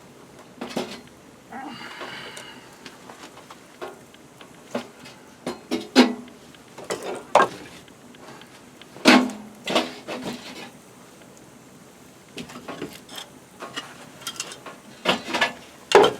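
Irregular clatter of hard objects being handled and set down: scattered sharp knocks and clinks, the loudest about six, nine and sixteen seconds in, with a short squeak about two seconds in.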